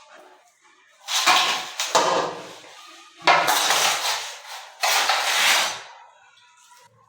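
Metal trowel scraping and working cement mortar against a hard surface, three long gritty strokes of about a second each.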